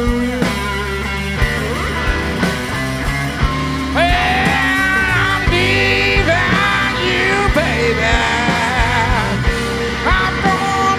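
Live blues band playing a slow blues: electric guitar over bass guitar and drums. About four seconds in, an amplified harmonica, cupped against the vocal microphone, comes in on top with bent, sliding notes.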